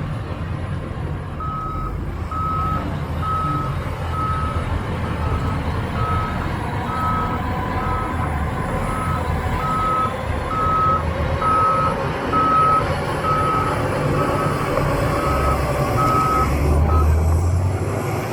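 A heavy machine's backup alarm beeping evenly, a little over once a second, over the low rumble of diesel earthmoving machinery. The beeping stops shortly before the end.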